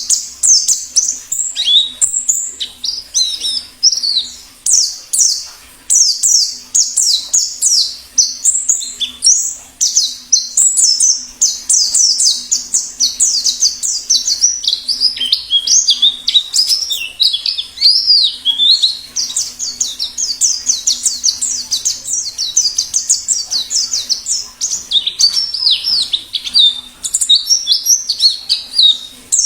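Pleci (white-eye) singing in the wild 'ngalas' style: a fast, unbroken stream of high, thin twittering notes, many sliding downward, with hardly a pause.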